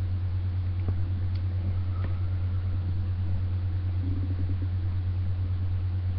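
Steady low hum with a light hiss above it, and a few faint clicks about one and two seconds in.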